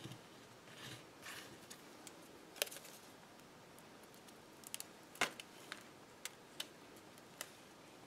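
Faint paper-crafting handling sounds: a roll of Glue Dots adhesive being handled and a dot peeled off for a small paper flower. Soft rustles at first, then a scattering of small sharp clicks and ticks, the loudest about five seconds in.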